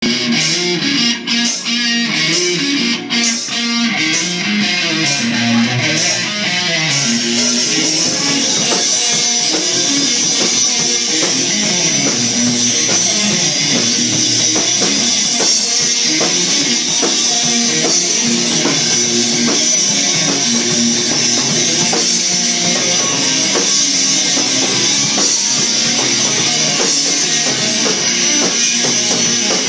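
Live rock band playing: an electric guitar riff over a Pearl drum kit. For the first few seconds the drums come in separate hits, then about seven seconds in the cymbals enter and the playing fills out into a steady full groove.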